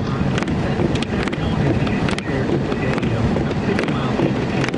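Car cabin noise while driving on a snowy road: a steady low rumble of engine and tyres with wind noise, crossed by scattered sharp ticks.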